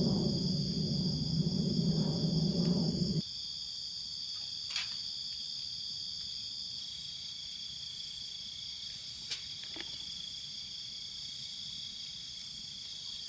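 A chorus of night insects, a steady high-pitched trilling of several overlapping tones. A louder low rumbling noise runs under it for about the first three seconds and cuts off suddenly, and a few faint clicks come later.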